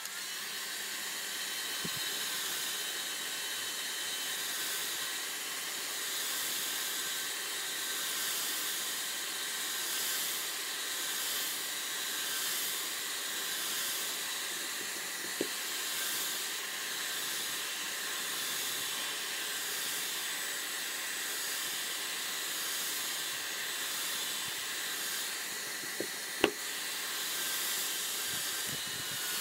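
Hair dryer blowing steadily as hot air is played over a phone's screen to heat it. A small click about fifteen seconds in and a sharper double click near the end.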